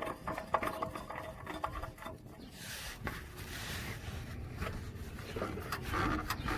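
Light rubbing and small clicks as a spin-on oil filter is threaded back onto the engine by hand.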